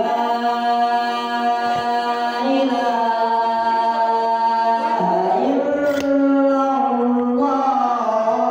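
A man's solo voice chanting the azan, the Muslim call to prayer, into a handheld microphone: one long held note for about five seconds, then, after a brief break, a second phrase with wavering, ornamented pitch. A single short click about six seconds in.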